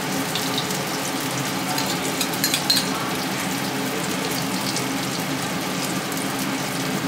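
Chicken malai boti skewers sizzling steadily as they shallow-fry in oil in a frying pan, with creamy marinade being spooned over them. A few light clicks come about two and a half seconds in.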